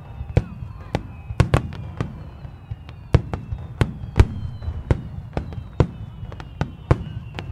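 Aerial fireworks shells bursting in quick, irregular succession, about two or three sharp bangs a second over a low rumble, with thin high whistles slowly falling in pitch behind them.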